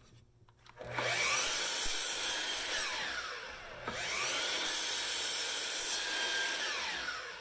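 Makita sliding compound miter saw crosscutting the end of a mahogany board, twice: each time the motor whines up to speed, the blade cuts through the wood, and the pitch falls as the blade spins down.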